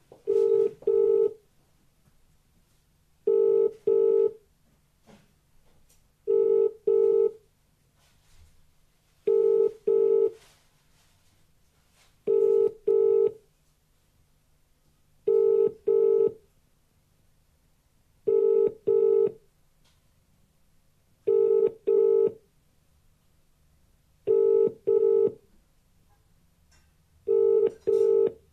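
British telephone ringing tone heard through a phone's speaker: about ten double rings, each 'brr-brr' pair three seconds apart. The outgoing call is ringing, not yet answered.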